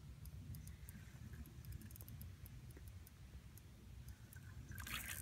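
Faint, irregular clicking of a fishing reel as line is worked during a fish fight, over a low steady rumble. A louder scuffing noise starts near the end.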